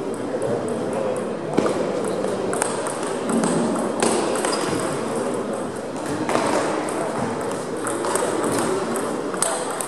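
Table tennis balls clicking irregularly off bats and tabletops from several tables in play, over a low murmur of voices.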